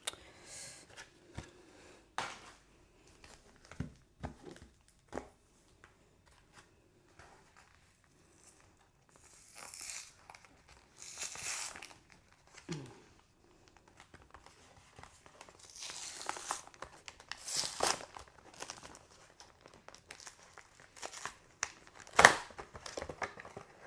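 Plastic blister packaging of trading card packs being pulled and torn open: crinkling plastic, tearing card backing and scattered clicks in short bursts with quiet gaps, and a sharp snap near the end.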